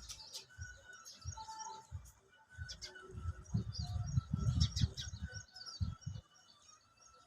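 Small birds chirping and twittering in many short calls, over irregular low rumbling thumps that are loudest around the middle.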